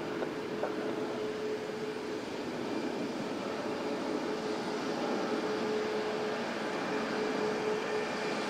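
Airbus A320-200 jet engines running at low taxi power: a steady jet noise with one held humming tone, growing slightly louder toward the end.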